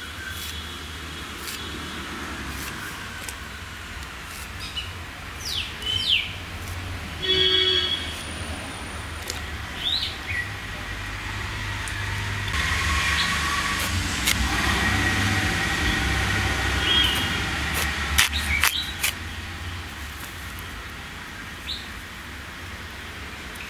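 Outdoor ambience: small birds chirping on and off over a steady low rumble. A broad rushing noise swells in the middle and fades, and a few sharp clicks come near the end.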